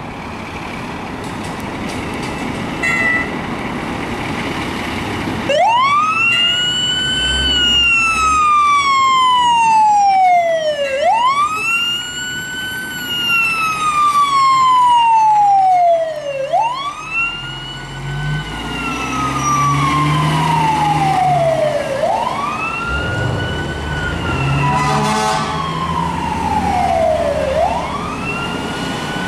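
Fire engine responding with its siren: engine running for a few seconds, then from about five seconds in the siren repeatedly rises quickly and falls slowly, about five cycles, over the truck's engine rumble.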